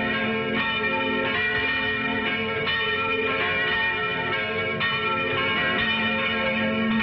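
Church bells ringing, with fresh strokes every second or two and each tone hanging on and overlapping the next in a dense, many-toned ring.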